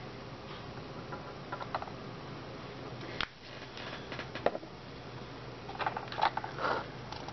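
Small objects being handled on a desk, a few light clicks and knocks, over a steady low hum. The clicks and knocks come singly in the middle and bunch together near the end.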